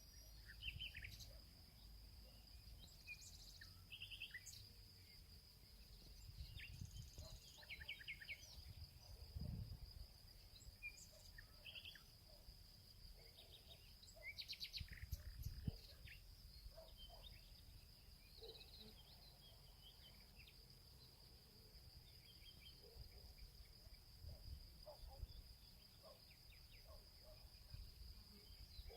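Faint background sound: a steady high-pitched whine under scattered short chirps and a few soft low thumps.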